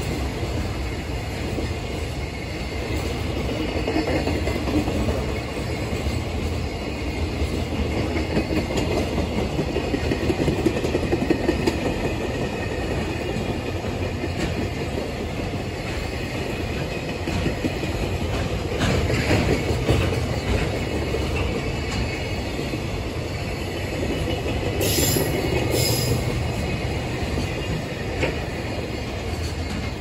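Container wagons of a long JR Freight train rolling past at speed, their wheels clacking over the rail joints in a steady rumble, with a couple of brief high squeals near the end.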